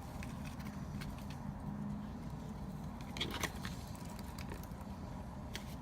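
Powder lightener (bleach powder) being poured from its container into a mixing bowl, with a few light clicks of the container against the bowl about three seconds in and again near the end, over a steady low hum.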